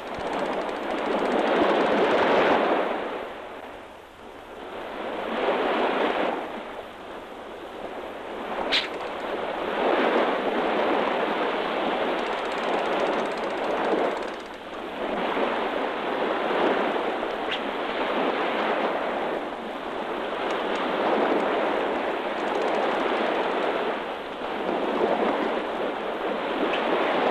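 Sea surf breaking on a beach, swelling and falling back every few seconds, heard as a thin, muffled rush. There is a single sharp click about nine seconds in.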